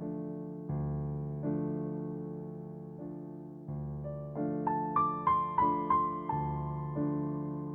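Background piano music: slow chords that strike and fade every second or so, with a short run of higher melody notes about halfway through.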